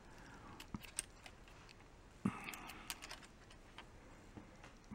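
Spring-loaded test hook clips clicking and rattling as they are unhooked from a small electrolytic capacitor's leads: a few light, scattered clicks, the loudest about two seconds in.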